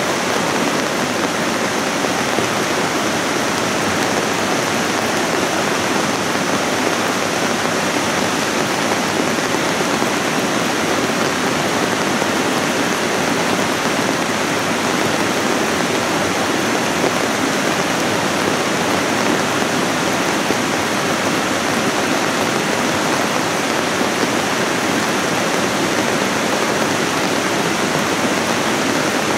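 Debris flow: a surge of muddy water, gravel and boulders moving down a channel in moraine, heard as a steady rushing noise.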